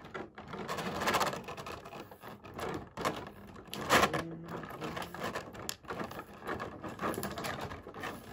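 Plastic packaging and tape crinkling and rustling as small action-figure accessories are handled and pulled free, with irregular small clicks and taps; the rustling is loudest about one second in and again about four seconds in.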